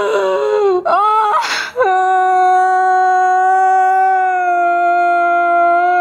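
A woman wailing in tears: broken, wavering sobs, a sharp gasping breath about a second and a half in, then one long, steady cry that sinks slightly in pitch after about four and a half seconds.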